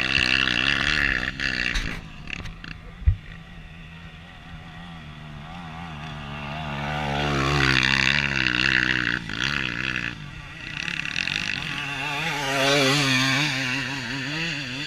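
Off-road motorcycle engines revving hard and unevenly, the pitch rising and falling as the bikes labour up a steep dirt hill. There is a sharp knock about three seconds in.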